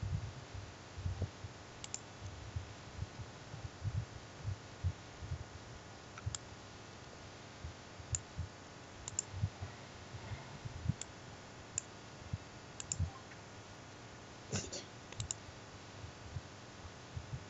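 Computer mouse clicking as folders and files are picked: about a dozen sharp, faint clicks at irregular moments, several in quick double-click pairs, with a cluster of clicks about three quarters of the way in. Soft low thumps sit beneath them.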